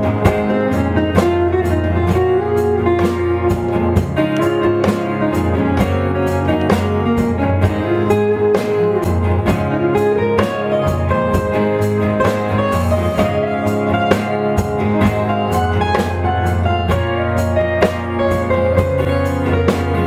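Instrumental passage of a song: a guitar melody over bass and a steady drum-kit beat, with no voice.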